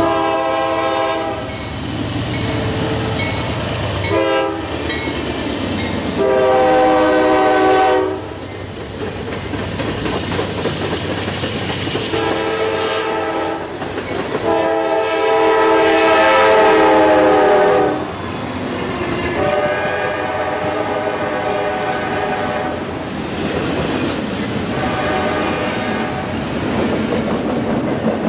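Norfolk Southern diesel freight locomotives passing close by, sounding their multi-note air horns in a series of about seven blasts, short and long, two long ones the loudest. Steady wheel rumble and clickety-clack of freight cars runs under the horns throughout.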